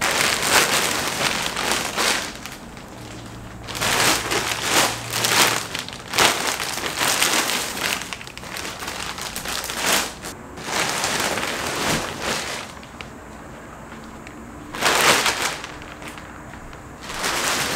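Thin plastic wrapping on a memory-foam mattress crinkling and rustling as it is pulled and gathered by hand, in several bursts of one to two seconds with quieter stretches between.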